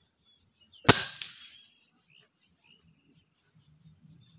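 PCP air rifle firing a single shot about a second in: one sharp crack with a short decaying tail, and a second, fainter crack about a third of a second after it.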